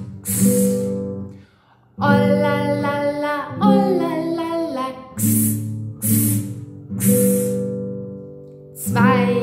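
Singing with strummed acoustic guitar: single chord strokes ring out, the guitar drops off briefly after the first one, and then a sung phrase carries on over further strums.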